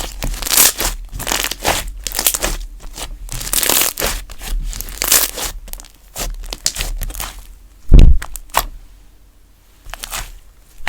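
Galaxy slime being stretched, folded and squeezed by hand, crackling and popping in quick irregular bursts. A heavy low thump comes about eight seconds in, followed by a short lull before the crackling resumes.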